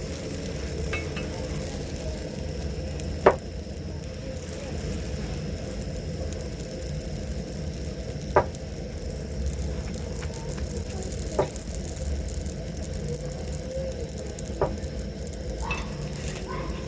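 Chapati frying in oil on a hot pan, sizzling over a steady low rumble, with four sharp knocks a few seconds apart.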